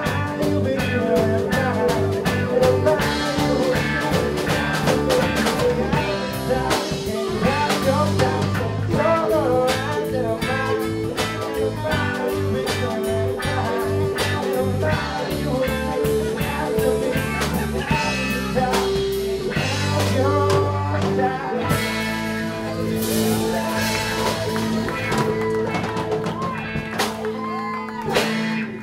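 Live bar band playing a rock/blues cover: electric bass and drums with a man singing lead. The song stops at the very end.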